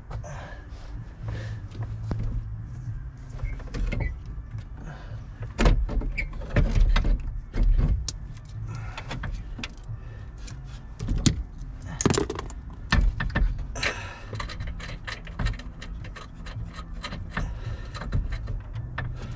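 Metal clicking and rattling with a few heavier knocks as a Ford F-250 steering column is held up and its mounting nuts are started by hand under the dashboard; the knocks are loudest about six to eight seconds in and again about twelve seconds in.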